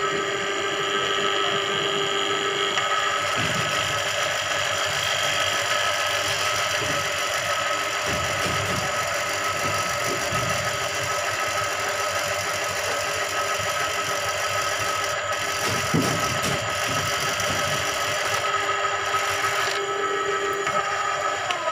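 Motorized drain-cleaning machine running steadily, spinning its spiral snake cable down a clogged drain, with one brief knock about three-quarters of the way through.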